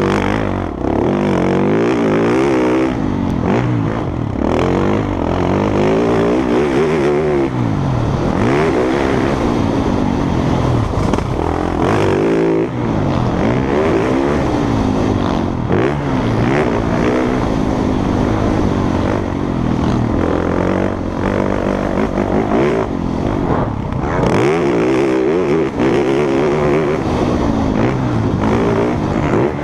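Several motocross bikes racing together, their engines revving hard and falling back as they accelerate, shift and pass. Engine notes overlap and rise and fall in pitch over and over without a break.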